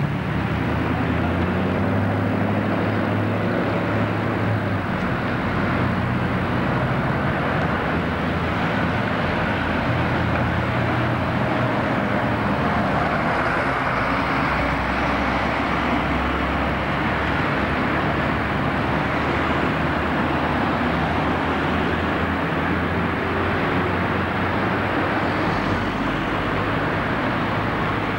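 Steady engine and road noise of a moving vehicle, heard from inside it, with a low engine hum clearest in the first few seconds.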